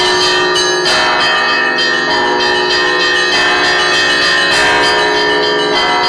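Russian Orthodox church bells rung by hand in a continuous peal: the small chiming bells are struck in quick succession on their ropes over a dense wash of sustained ringing tones from the larger bells.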